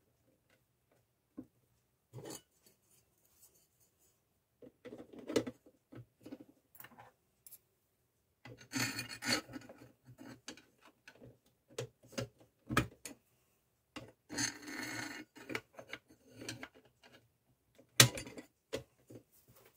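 Clear plastic globe and lid of a vintage gumball machine being handled and fitted onto its metal base: scattered clicks and light knocks, two stretches of plastic scraping and rubbing, and a sharper knock near the end as the lid goes on.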